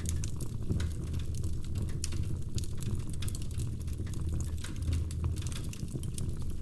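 Wood fire crackling in a fireplace: many quick, irregular pops and snaps over a low, steady rumble.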